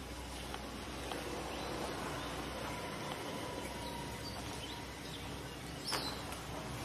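Steady outdoor background noise with a few faint, short chirps and scattered light clicks, the sharpest click about six seconds in.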